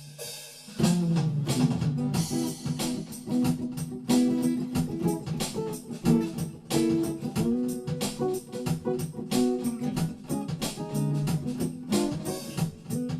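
Instrumental introduction of a soul song: guitar and organ over a steady drum beat, the full band coming in about a second in.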